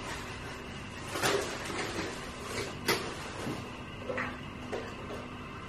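A few light knocks and clicks, the two clearest about one and three seconds in, with fainter ones later, over low steady room noise.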